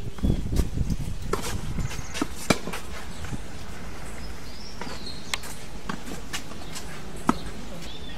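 Sharp knocks of a tennis ball being struck by rackets and bouncing on a clay court, coming at irregular intervals, the loudest about two and a half and seven seconds in. Wind rumbles on the microphone during the first second.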